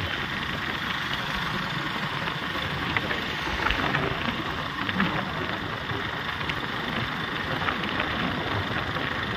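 Steady road noise from a motor vehicle on the move: engine hum and tyre rush, with wind on the microphone.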